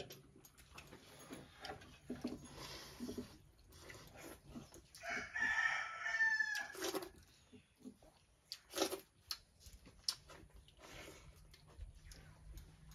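A rooster crows once about five seconds in, a call lasting under two seconds that ends in a falling note. Scattered small clicks come from people eating out of steel bowls.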